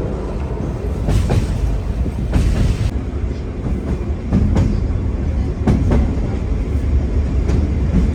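Train running on rails: a steady heavy rumble with irregular clattering and knocking from the wheels and carriage.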